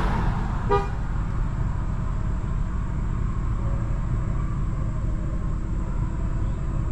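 Steady low rumble of a vehicle engine, with one brief horn toot about three-quarters of a second in.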